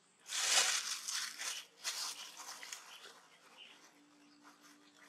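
Plastic bag rustling and crinkling in a hand: a loud crinkle in the first second, then softer scratchy rustles that fade out a couple of seconds later.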